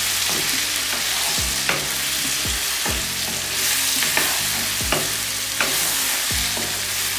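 Potatoes, tomatoes and spices sizzling in hot oil in a karahi while being stirred, with the stirring utensil knocking and scraping against the pan about once a second.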